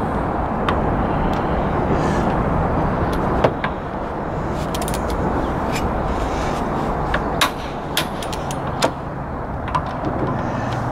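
Click-type torque wrench tightening car wheel bolts to 100 ft-lb: a scattering of short, sharp metallic clicks and clinks as the wrench reaches torque and the socket is moved onto the next bolt. Steady traffic noise runs underneath.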